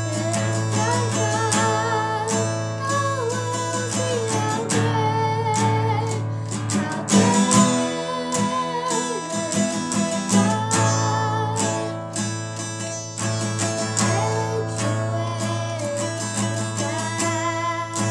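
A child singing a song while strumming chords on an acoustic guitar.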